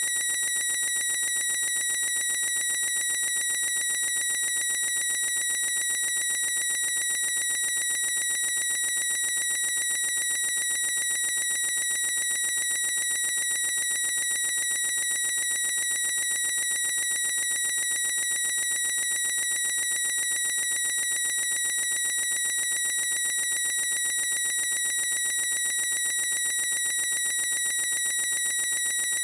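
A boy's high-pitched squeal, held at one steady pitch without a break.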